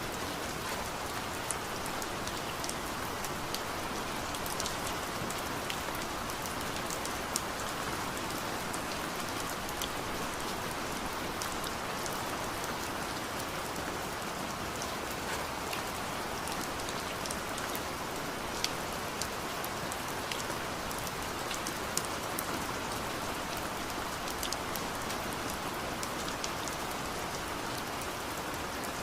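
Steady rain falling, an even hiss with scattered sharper drop impacts.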